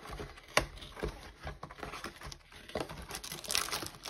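Cardboard blaster box of baseball card packs being opened by hand: small taps and scrapes of the flaps, with rustling that gets busier about three seconds in.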